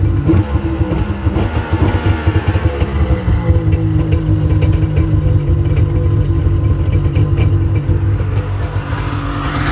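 Starter cranking the flooded two-stroke triple of a Yamaha GP1200R personal watercraft over with the spark plugs out: a steady, fast-pulsing mechanical drone. It is pumping water out of the cylinders, which leaves the stern as mist.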